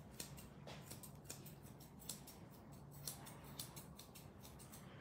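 Grooming scissors snipping through a dog's wavy fur: a steady run of faint, crisp snips, several a second.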